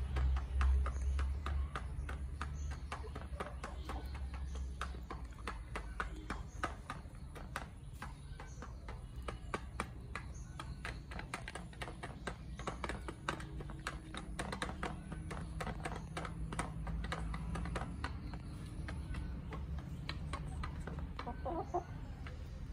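Chickens pecking feed from a red plastic pan feeder: a fast, irregular run of sharp beak taps on the tray and the ground. A low rumble in the first second or two, and a short chicken call near the end.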